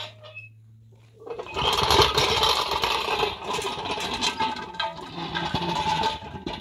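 Makeshift roller of plastic containers on a stick handle pushed over a packed-dirt yard: a loud, rough rattling and scraping rumble that starts about a second and a half in.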